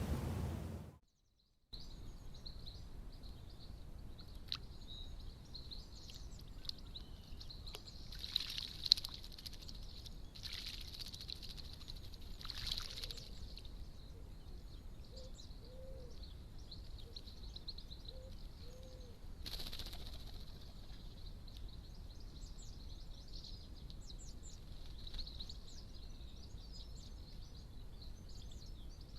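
Small garden birds chirping and twittering, with a few short bursts of splashing from birds bathing in a bird bath.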